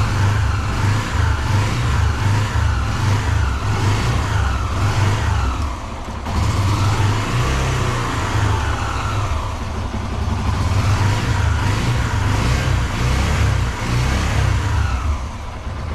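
Yamaha YBR125's single-cylinder four-stroke engine running, not yet fully warm and on freshly changed oil, its pitch rising and falling repeatedly as it is revved, with a brief drop about six seconds in.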